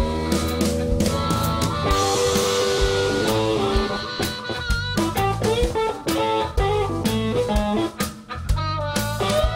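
Live blues band: a Stratocaster-style electric guitar plays a lead line of single notes, some of them bent, over drum kit and low accompaniment.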